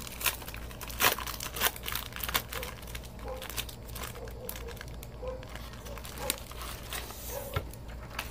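Clear plastic laminating-film pouch crinkling and crackling as hands press and slide it over a sheet of paper, in irregular crackles that are busiest in the first couple of seconds.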